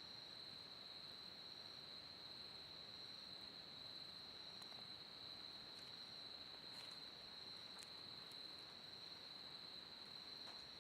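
Faint, steady high-pitched insect chorus of autumn crickets, with a few faint crackles from the wood fire.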